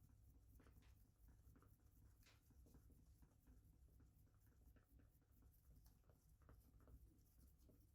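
Near silence: faint, irregular scratching and small ticks over a low steady hum.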